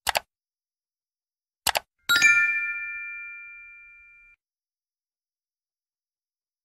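Subscribe-animation sound effects: two short mouse-click sounds, each a quick double click, then a bright bell-like notification ding that rings and fades out over about two seconds.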